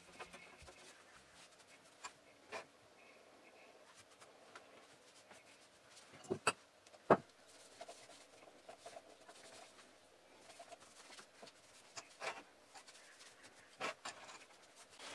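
Faint rubbing of an oily rag wiping the metal bed, carriage and chuck of a mini metal lathe. Scattered light clicks and knocks come from the hand and rag catching the lathe's fittings, the sharpest a little past halfway.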